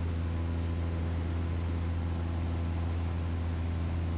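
Steady drone of a Super Decathlon's four-cylinder Lycoming engine and propeller at constant power in flight, heard from inside the cockpit.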